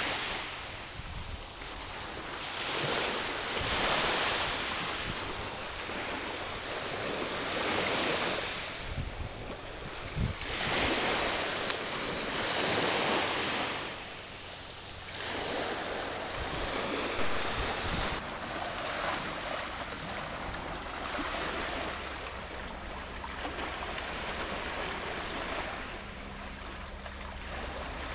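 Small sea waves washing in over a rocky, pebbly shore, the wash surging and draining back every few seconds.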